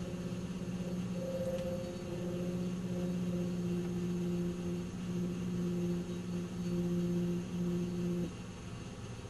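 1997 Nissan Maxima's V6 idling with a droning, humming resonance that swells and fades in waves, then stops abruptly about eight seconds in, leaving the plain, quieter idle. The resonance shows up only at idle and goes away with a little gas; its cause is unknown to the owner.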